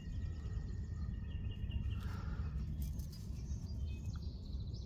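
Birds chirping in short quick trills over a steady low background rumble.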